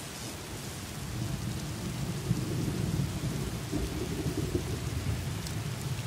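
Thunder rumbling low over a steady hiss of rain.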